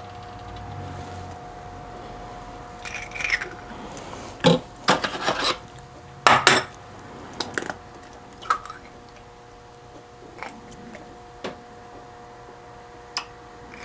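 Eggshells cracked against the rim of a drinking glass and pulled apart to separate the yolks from the whites: a run of short sharp cracks and clicks of shell on glass, busiest in the middle. A faint steady two-tone hum runs beneath.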